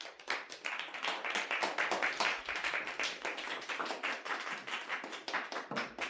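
A small audience applauding: a steady run of individual hand claps.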